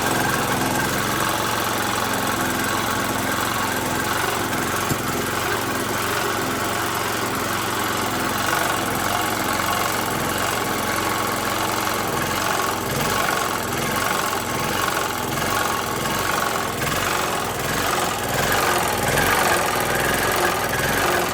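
Small petrol generator engine, converted to run on LPG through a dual-fuel carburettor, running steadily on gas. The conversion is working.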